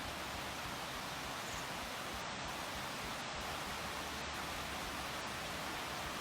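Steady rushing water of a waterfall: an even hiss with no change in level.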